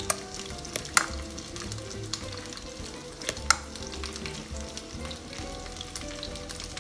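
A metal spoon tossing a wet, dressed salad in a glass bowl, with a few sharp clicks of metal against the glass. A steady sizzling hiss runs underneath, typical of chicken wings frying in a pan.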